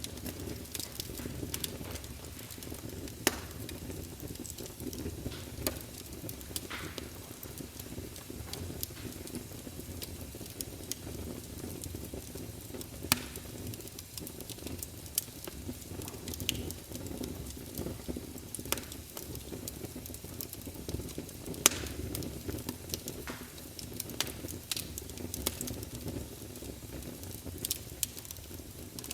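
Wood campfire burning: a steady low rumble of the fire with scattered sharp crackles and pops, and a few louder snaps spread through.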